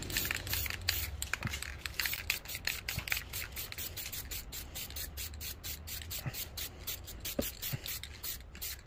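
Aerosol spray paint can hissing as a second coat goes on, the hiss coming and going in quick pulses, about five or six a second.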